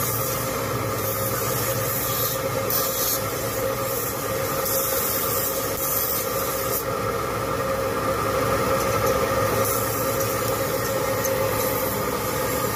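Motor-driven grinding wheels of a scissor-sharpening machine running with a steady hum, while a steel scissor blade is ground against a spinning wheel, adding a hiss that comes and goes in short stretches through the first half.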